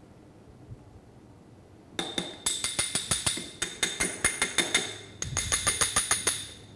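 A metal teaspoon tapping against a small glass funnel in a bottle neck to knock bentonite clay powder through it. Rapid light clinks with a ringing tone, several a second, starting about two seconds in.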